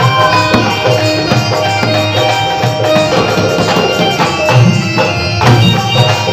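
Hindi devotional bhajan music: a sustained melody over a steady tabla-style drum beat with tambourine.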